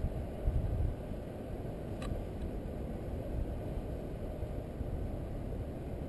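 Airflow buffeting the microphone of a stick-mounted action camera on a paraglider in flight: a steady low rushing rumble, gustier in the first second. A single small click about two seconds in.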